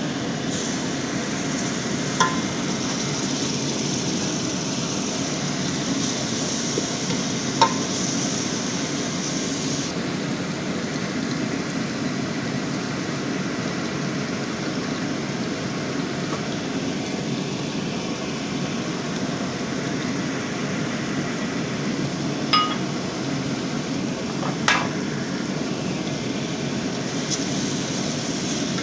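Steady rushing kitchen noise, with four sharp metallic clinks of a utensil against a cooking pot, two early and two close together near the end.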